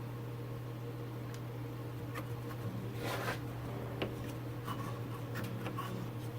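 Small scraping and clicking handling noises as a screw is worked against a cable mount on a CNC router, searching for its hole, over a steady low hum.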